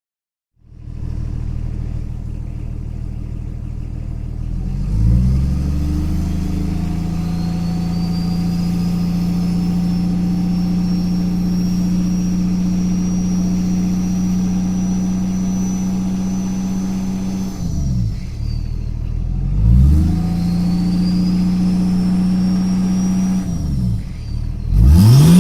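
BMW E28 524td's 2.4-litre turbodiesel straight-six running with no exhaust fitted: it starts idling, is revved up and held at raised revs for about twelve seconds, drops back, and is revved and held again for a few seconds before a last rev near the end. A faint high whine climbs as the revs rise.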